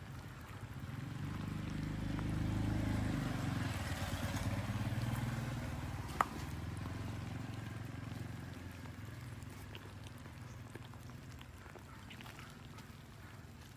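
The low hum of a motor engine, growing louder over the first few seconds and then fading slowly away. There is a single sharp click about six seconds in.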